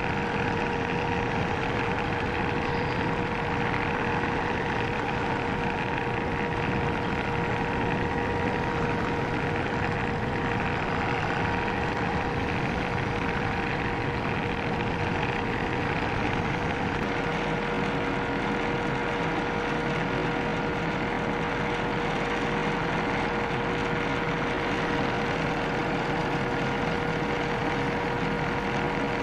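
Holtzapffel ornamental turning lathe running, its belt-driven universal cutting frame spinning and cutting a spiked pattern into the work: a steady mechanical hum with a constant whine. About halfway through, the low hum shifts and a fainter, higher tone joins in.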